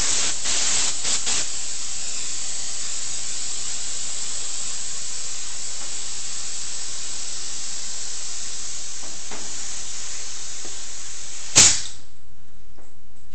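Compressed air hissing steadily from an airbrush air hose, cut off near the end by a single short, loud pop.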